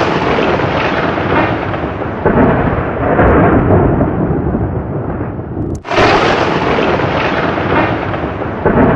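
Loud thunder rumbling on after a clap. About six seconds in, a new thunderclap starts with a sharp crack and rolls into another long rumble.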